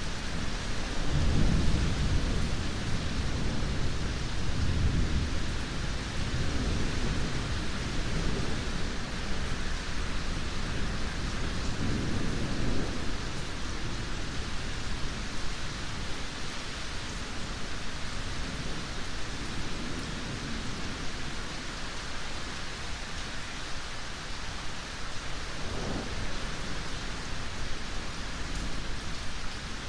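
Steady heavy rain with rolling thunder. The rumbles swell near the start, loudest about two seconds in, come again about twelve seconds in, and return more faintly later.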